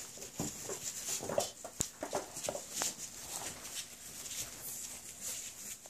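Whippet puppies scuffling about on loose wood shavings: a busy patter of small rustles and clicks from paws, with a few brief high whimpers and squeaks.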